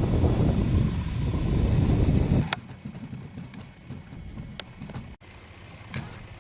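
Wind buffeting the camera microphone as a loud, uneven low rumble, cut off suddenly about two and a half seconds in; after that only a quiet background with a few faint clicks.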